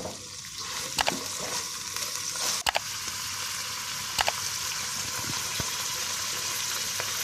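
Beef pieces frying in oil with blended onion paste in a nonstick karahi: a steady sizzle with a few sharp ticks, as the meat is browned (bhuna) with the onion paste.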